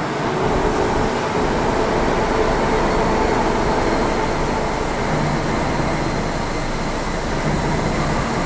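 Steady mechanical hum and noise of running machinery, with a few faint steady tones and no distinct strikes or clanks.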